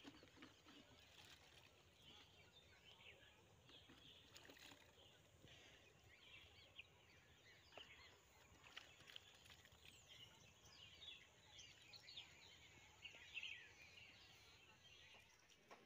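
Quiet rural outdoor ambience with faint, frequent small-bird chirps throughout, busier in the second half.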